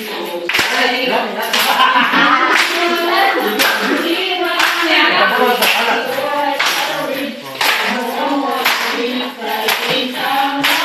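A group of voices chanting a cheer in unison, with rhythmic hand claps.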